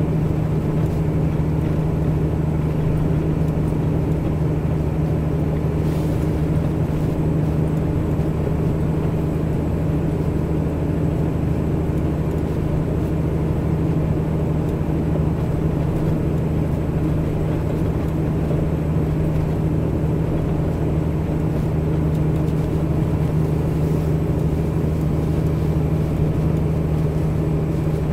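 Tanker truck's diesel engine running steadily under way, a constant-pitched drone with road noise and no change in speed or load.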